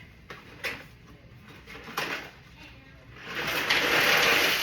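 Two light kitchen knocks, then a loud pouring rush that lasts about a second and a half and stops abruptly.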